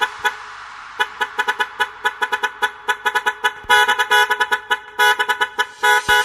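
Truck horn sample sounded in rapid, rhythmic short toots as part of a dance remix; the toots get louder and fuller nearly four seconds in.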